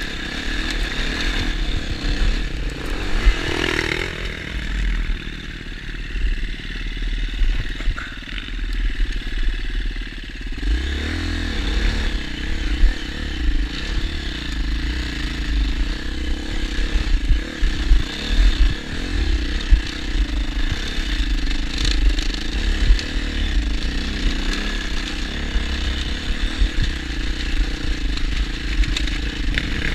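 New KTM EXC two-stroke enduro motorcycle engine being run in, riding at low revs under changing throttle, with the revs rising about ten seconds in. Light clattering from the bike over stones and branches.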